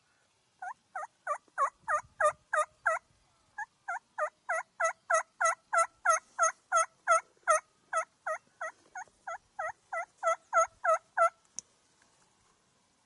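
Turkey call worked by a hunter: a long run of about thirty evenly spaced hen-style yelps, roughly three a second, with a brief pause about three seconds in.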